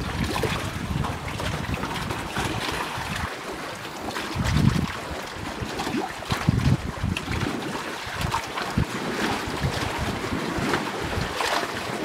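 Gusty wind buffeting the microphone, with stronger gusts about four and six and a half seconds in.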